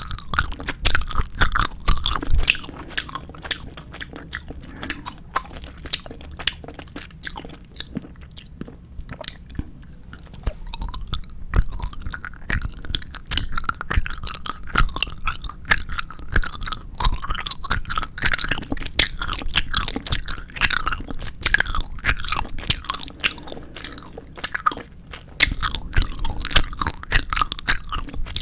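Close-miked chewing and biting of 4D gummy jelly candy: a dense run of small wet clicks and smacks, louder at the start and again near the end.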